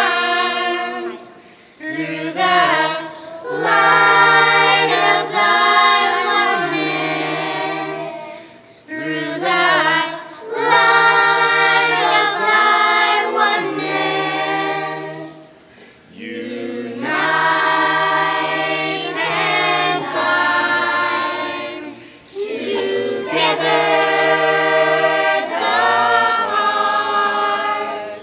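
Children's choir singing in long held notes. The phrases last several seconds, with short breaks between them.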